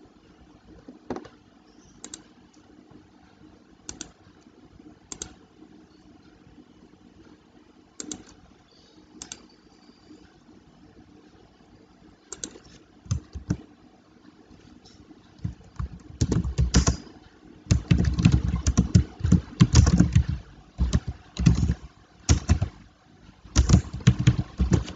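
Computer keyboard being typed on. A few scattered single clicks come for the first fifteen seconds or so, then a quick run of keystrokes types out a line of text.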